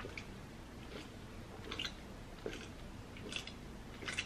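Sipping a drink through a straw and swallowing, close to the microphone: faint, short mouth sounds, six of them, a little under a second apart.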